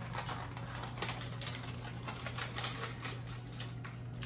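Plastic packaging of a roasted seaweed snack pack crinkling and crackling as it is handled and torn open, in quick irregular crackles over a steady low hum.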